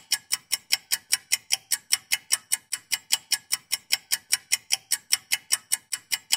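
Rapid, even electronic ticking, about five ticks a second, from an online car auction app's bid countdown timer running down.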